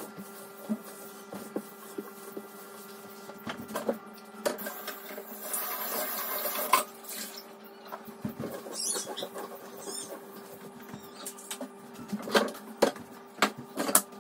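Kitchen handling and cleaning sounds: scattered light clicks, knocks and clatter of things being picked up and put down, with a rushing noise for about two seconds around the middle and a faint steady hum underneath.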